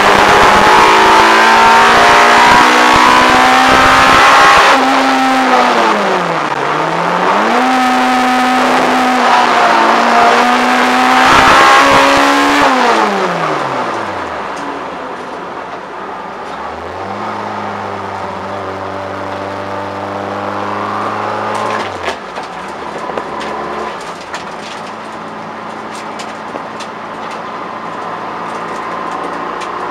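Peugeot 106 GTI's 1.6-litre 16-valve four-cylinder engine on Jenvey individual throttle bodies, heard from inside the cabin, running hard under load, its pitch dipping and climbing again. About halfway through the revs fall away, and the engine runs more quietly at a lower, steady pitch.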